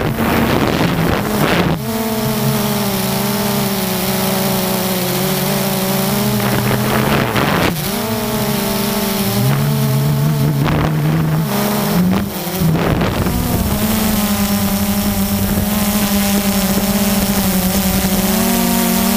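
Quadcopter drone's motors and propellers buzzing steadily, the pitch dropping about halfway through and rising again a few seconds later. A few brief rushing noises break in.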